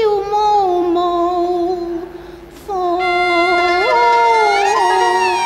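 A woman singing Cantonese opera, drawing out long, wavering notes over the band's accompaniment, with a short break for breath about two seconds in.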